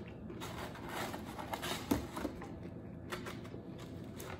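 Soft eating and handling sounds: fingers picking a fried chicken tender out of a takeout box of fries, with a few small clicks, the sharpest about two seconds in.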